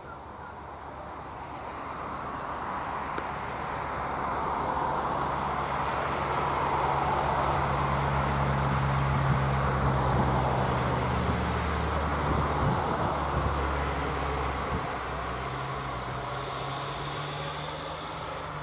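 Engine and road noise of an unseen passing motor vehicle, swelling over several seconds to its loudest about halfway through, then slowly fading.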